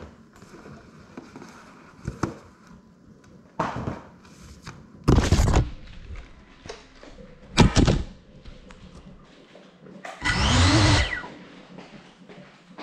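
Handling noise from a crashed FPV cinewhoop being picked up, carried and set down, picked up through its own onboard camera's microphone. There are knocks and several short loud rushes of rubbing, then a longer one of about a second, about ten seconds in, with a tone that rises and falls.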